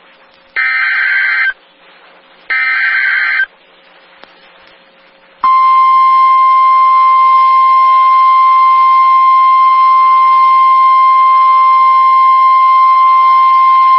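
NOAA Weather Radio Emergency Alert System signal: two loud warbling SAME data bursts about a second each, then a steady single-pitch 1050 Hz alert tone starting about five seconds in and holding for about nine seconds. The tone signals the start of a warning broadcast, here a tornado warning.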